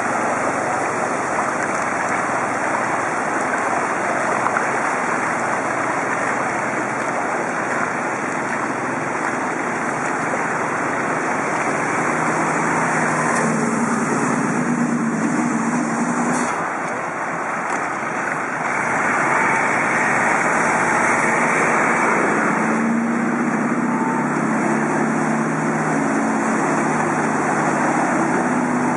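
Harsh wind noise buffeting a bicycle-mounted camera's microphone, steady throughout. A motor vehicle's engine hums low beneath it during the second half, and near the end a city bus runs alongside through the floodwater.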